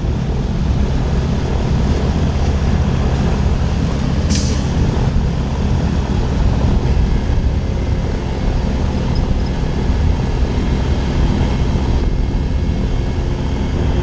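Gyroplane's propeller engine running steadily at low power while taxiing, with a short hiss about four seconds in.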